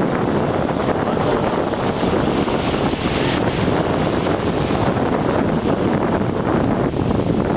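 Steady wind buffeting the microphone, with small waves washing in at the shoreline.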